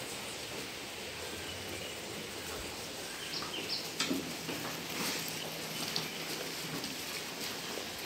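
Sheep shed ambience: a steady rustling hiss from a flock of sheep feeding side by side at a trough of chopped green fodder, with a few short high chirps a few seconds in.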